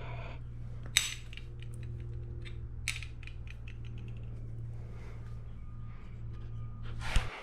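Hand tools and small metal parts on a two-stroke dirt bike engine being taken apart: two sharper metallic clinks about one and three seconds in, a run of light ticks between them, and scattered taps later, over a steady low hum that cuts off near the end.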